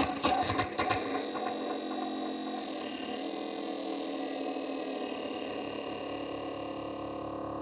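Electronic noise drone from analog noise boxes run through filter, overdrive and delay pedals. A harsh, dense noise wash fades away over the first second, leaving a sustained drone of layered steady tones whose upper tones dip briefly about three seconds in.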